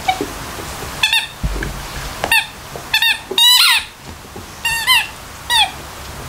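A squeaky toy squeaking in short, high bursts as a labradoodle bites and chews it, about six times, with the longest squeak about three and a half seconds in.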